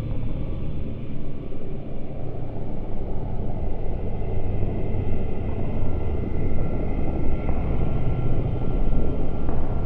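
Dark ambient drone: a deep, rumbling low hum with a dense, noisy texture, joined about halfway through by faint, thin, sustained high tones.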